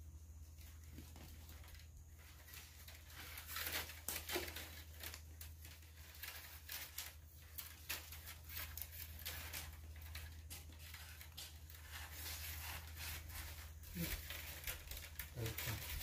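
Bamboo being split and stripped by hand into thin strips, giving irregular crackling and tearing over a steady low hum.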